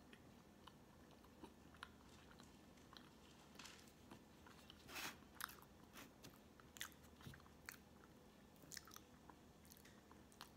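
Faint close-miked chewing of soft sponge cake with the mouth closed: small wet mouth clicks and smacks, with one louder, longer mouth sound about halfway.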